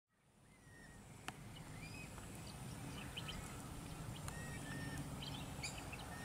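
Outdoor ambience fading in: many short bird chirps and whistles over a steady high insect drone and a low steady hum, with one sharp click about a second in.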